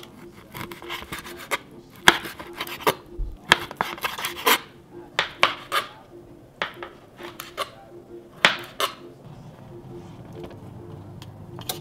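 Kitchen knife slicing Chinese sausage on a cutting board: a run of irregular sharp knocks as the blade strikes the board, clustered through the middle of the stretch, then quieter handling sounds near the end.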